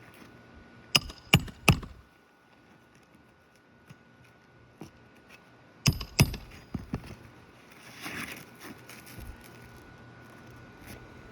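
Hammer driving roofing nails through an asphalt shingle: three quick sharp strikes about a second in, then two more strikes and a few lighter taps around the middle, followed by a short scrape.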